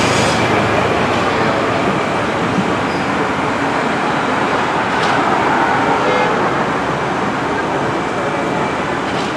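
Passenger train rolling along, a steady, loud rumble and hiss of wheels on track.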